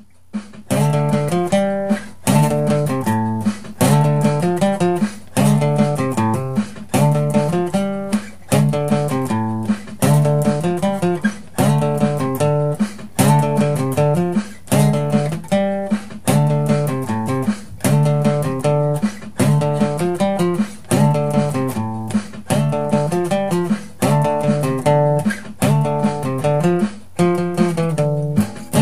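Intro music: a strummed guitar playing a steady, repeating pattern of chords, about one strum a second.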